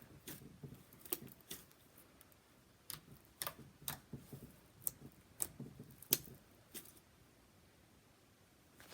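Butter slime being squeezed and poked by hand, giving off irregular sharp clicks and pops, about a dozen of them, which stop about seven seconds in.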